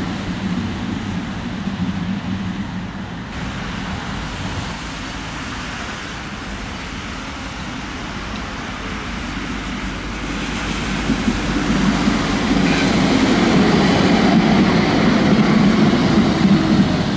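City street traffic with trams: the rumble of a passing vehicle fades over the first few seconds, then a vehicle approaches and grows louder from about halfway through.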